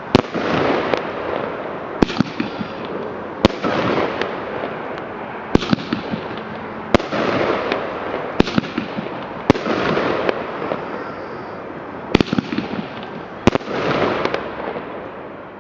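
Fireworks going off: a sharp bang every one to two seconds, each followed by a spell of crackling from the burst, the sequence dying away at the end.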